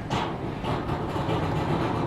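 Boat engine running as a steady low rumble, with a louder rushing noise that sets in just after the start.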